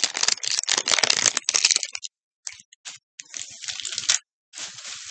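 Plastic candy packaging crinkling and crackling as it is worked open by hand: dense crackling for about two seconds, then shorter bursts with short pauses between them.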